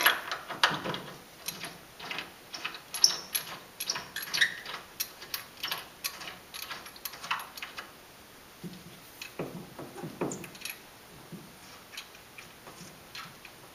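Hand ratchet wrench clicking in irregular bursts as the brake caliper's mounting bolts are run in and snugged down, with small metal tool clinks. The clicking thins out about eleven seconds in.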